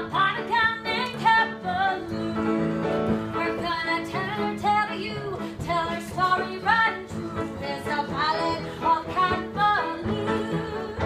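A song from a stage musical: a voice singing a melody over steady held instrumental notes.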